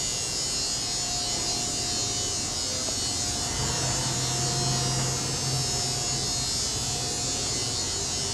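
Steady factory room noise: a constant high hiss over a low hum with a faint steady whine, the hum growing somewhat louder around the middle.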